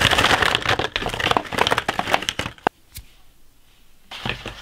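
Small cardboard 35mm film boxes tumbling out of a cloth tote bag onto a desk: a dense clatter and rustle that stops about two and a half seconds in. A single knock follows, then lighter handling sounds near the end.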